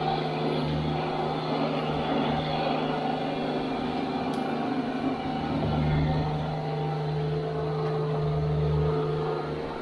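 Diesel engine of a TYM T224 subcompact tractor running steadily at working speed, swelling slightly in level now and then.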